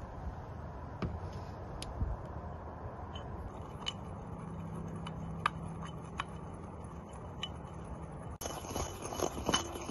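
White ceramic pestle grinding spice seeds in a ceramic mortar: scattered sharp clicks and scraping. Near the end the clicks become denser and louder, up close.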